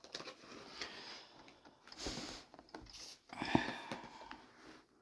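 Cardboard toy box being handled and turned over: irregular rustling and scraping, with a sharp tap about three and a half seconds in.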